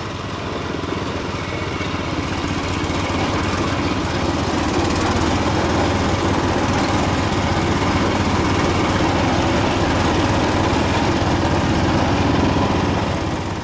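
Garden tractor engine running steadily while riding over an off-road trail, growing a little louder over the first few seconds and easing off near the end.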